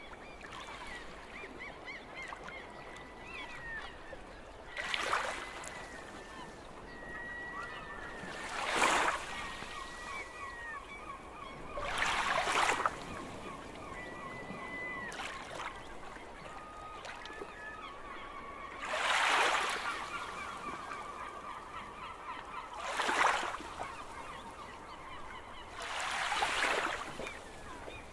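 Gulls calling over and over in short, repeated notes, while surf washes in six times, each wave a swell of rushing noise about a second long that stands out above the calls.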